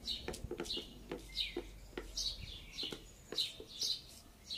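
A small bird chirping over and over in short, falling chirps, several a second, with soft clicks and squirts as liquid soap is squeezed from a plastic bottle onto a motorcycle tyre's bead.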